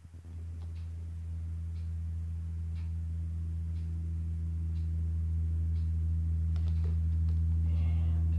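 A steady low hum that grows slowly louder, with faint ticks about once a second and a short rustle near the end.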